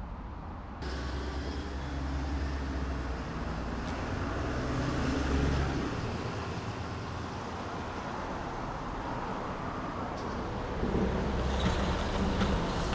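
Road traffic: a motor vehicle passing close by, its engine and tyre noise swelling to loudest about five seconds in and then fading, over a steady traffic hum that cuts in abruptly about a second in.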